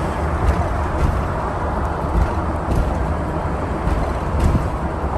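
Steady rumble of road and wind noise from a moving vehicle, strongest in the low end, with a few faint clicks.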